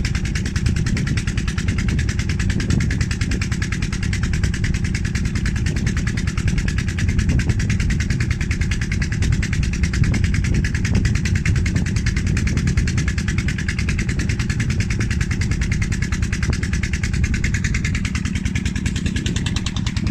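Wind buffeting the microphone: a steady low rumble that flutters unevenly, with a fainter hiss above it.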